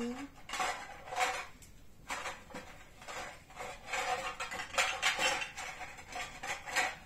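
Small props clinking and clattering against a ceramic bowl and the things inside it: a run of quick knocks, many ringing briefly.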